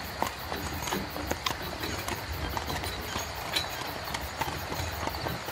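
Horse-drawn carriage on the move: horse hooves clip-clopping in an uneven run of knocks, over a steady low rumble of the carriage rolling.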